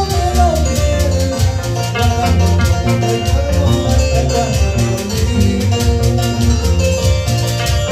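Live Latin American dance music from a small band: plucked harp and guitar over strong bass notes, with a steady, even beat.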